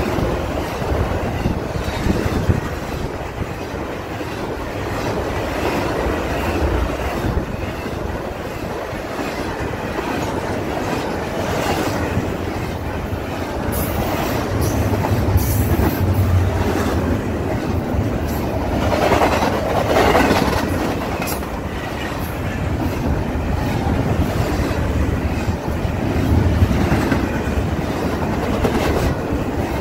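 Double-stack intermodal freight train of container well cars rolling past close by: a steady rumble of steel wheels on rail with repeated clicking as the wheels cross rail joints. It swells louder for a moment about twenty seconds in.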